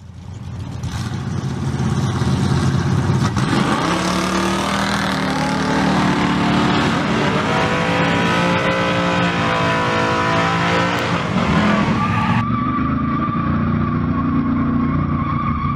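Drag-racing car engines running hard, the pitch climbing and falling as they rev. About twelve seconds in it cuts to a lower-quality recording of another car engine running, with a steady high whine over it.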